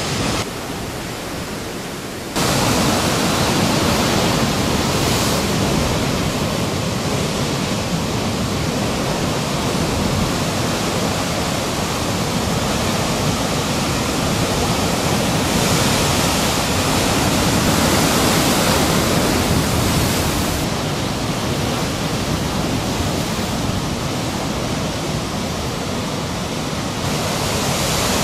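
Steady rushing roar of ocean surf breaking, with no distinct crashes standing out; it gets suddenly louder about two seconds in and then holds steady.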